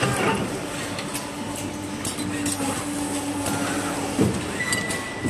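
Automated machine line for moulding artificial Christmas-tree branches running, with scattered clicks and a knock about four seconds in. A low hum is held through the middle, and a short high tone comes near the end.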